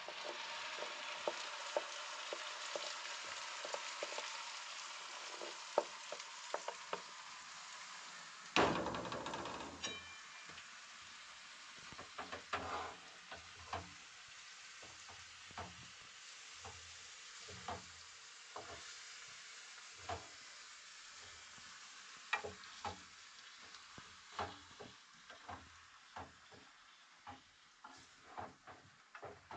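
Food sizzling in a hot pan, the sizzle strongest in the first several seconds and then dying down. A loud knock comes about eight seconds in, followed by irregular knocks and clicks through the rest.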